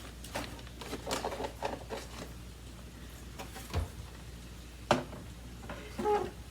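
Scattered clicks, rustles and a soft knock from handling the plastic bag compartment and bag of an upright vacuum cleaner that is switched off.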